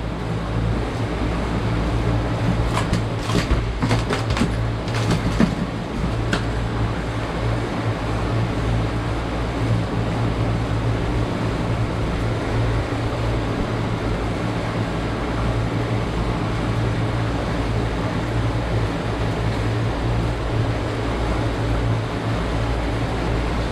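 Twin outboard motors running steadily as the boat moves, a low engine drone under the rush of water and wind. A few sharp clicks come between about three and six seconds in.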